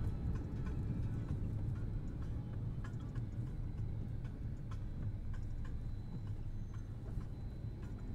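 Car driving along a road, heard from inside the cabin: a steady low rumble of engine and tyres, with light clicks scattered through it.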